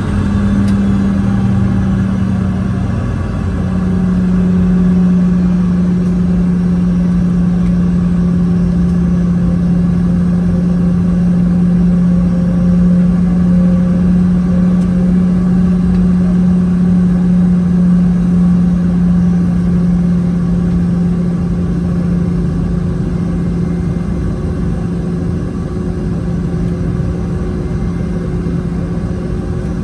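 Boeing 717-200's tail-mounted Rolls-Royce BR715 jet engines running during pushback and engine start, heard inside the rear cabin as a loud steady drone that steps slightly lower in pitch about three seconds in.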